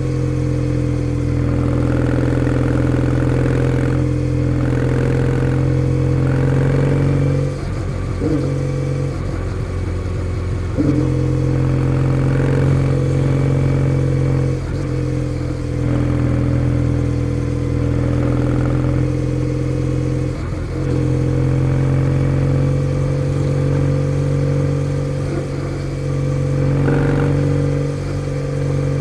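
Kawasaki W650's air-cooled parallel-twin engine running under way through a POSH W1 full exhaust, a steady note that breaks and shifts in pitch briefly a few times.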